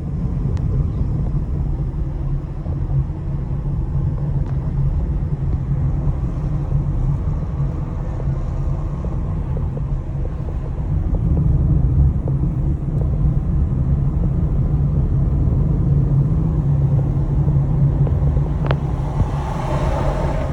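Car driving along: a steady low engine and road rumble that grows louder about eleven seconds in, with one sharp click near the end.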